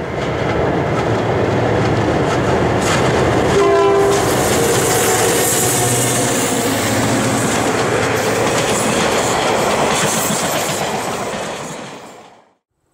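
Ontario Northland passenger train, a diesel locomotive pulling a power car and four coaches, passing close at track speed, with one short horn blast about four seconds in. The sound fades out near the end.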